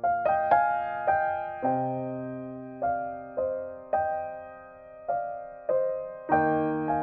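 Slow, gentle piano music, a note struck about every half second, each ringing and fading.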